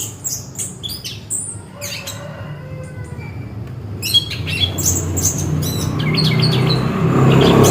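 Chestnut-capped thrush (anis kembang) singing a fast run of short, high chirps and whistled notes. A steady low hum underneath grows louder toward the end.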